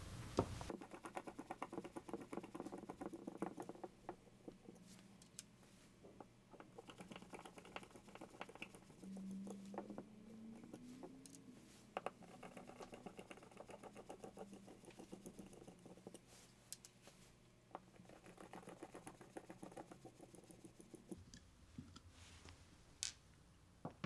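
Faint rapid ticking and scraping of a flathead screwdriver turning out the cover screws of a rotary limit switch housing, with a few sharper clicks.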